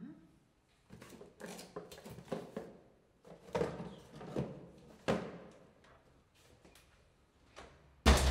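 A cardboard parcel being picked up and handled at a front door: a series of light knocks and rustles, then the door shutting with a loud thud near the end.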